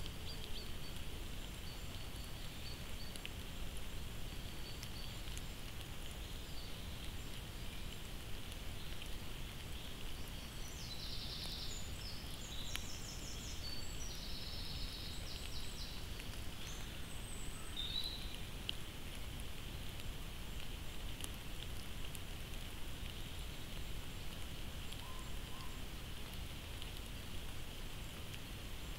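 Steady hiss of woodland ambience through a trail camera's built-in microphone, with a small bird's quick run of repeated high notes a few times in the middle.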